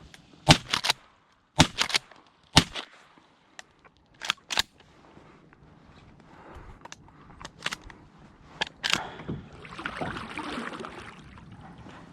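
Shotgun shots at ducks: three loud reports about a second apart in the first three seconds, then two weaker cracks about four seconds in. Lighter clicks and rustling follow.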